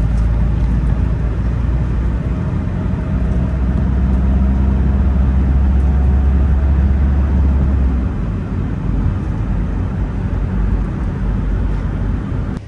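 A motor vehicle running, a steady low rumble that eases off about eight seconds in.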